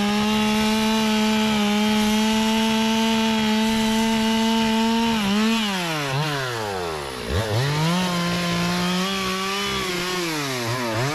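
Two-stroke chainsaw running at high revs, cutting into teak wood. The engine note holds steady for about five seconds, drops away and climbs back a couple of seconds later, then dips and rises again near the end.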